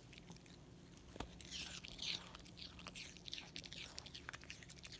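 Small dog nibbling and chewing a piece of raw apple from a hand: faint, crackly crunching with small clicks, loudest about one and a half to two seconds in.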